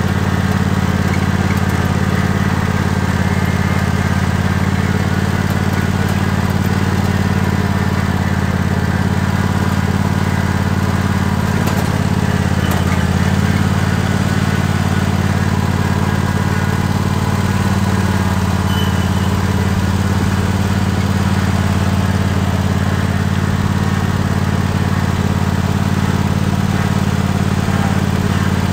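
Tractor engine running at a steady, even speed as the tractor drives along.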